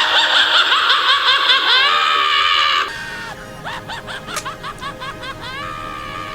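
High-pitched cartoon snickering laugh sound effect: a quick run of squeaky, bouncing notes, loud for about the first three seconds, then softer rising chirps.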